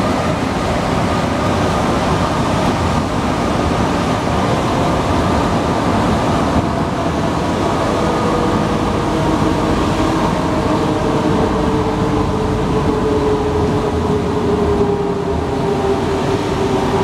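Alstom NS-93 rubber-tyred metro train running: a steady loud rumble, with a whine that slowly falls in pitch through the second half.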